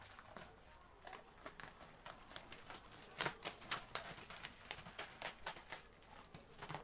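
Clear plastic wrapping crinkling and crackling under hands, in irregular small bursts, loudest about three seconds in.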